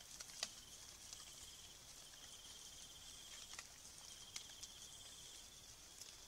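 Night insects trilling faintly in three stretches of rapid pulses at one high pitch, over a steady high insect hiss, with a few faint sharp ticks in the leaf litter, the loudest about half a second in.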